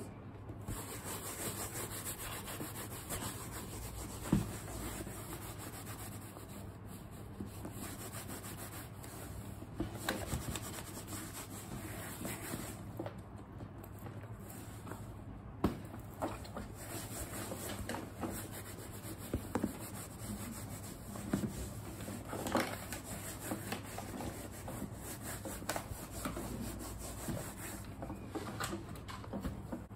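A wipe rubbed back and forth over the pebbled leather of a handbag, a faint steady scrubbing as the leather is cleaned and conditioned, with a small knock now and then.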